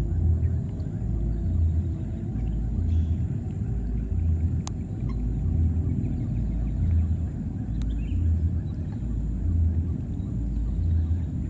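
Low motor-like rumble that throbs about once a second, with a steady high-pitched tone above it and a single sharp click about halfway through.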